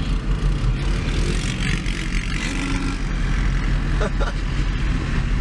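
Steady engine drone and road rumble of a Ford Super Duty pickup, heard from inside its cab while driving, with a couple of short clicks about four seconds in.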